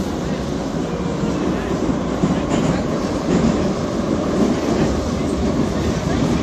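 Metro train running, heard from inside the passenger car: a steady rumble of the moving carriage.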